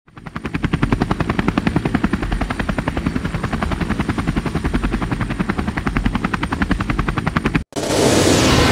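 Steady, rapid chopping of a helicopter's rotor, about eight beats a second, fading in at the start and cutting off abruptly near the end.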